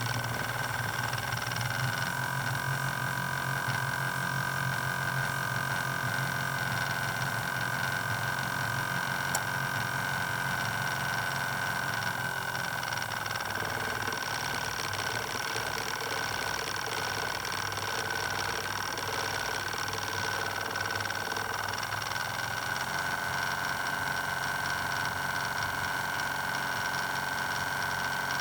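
Espresso machine's steam wand frothing milk: a steady steam hiss with high whistling tones over a low mechanical buzz, the buzz easing off about halfway through.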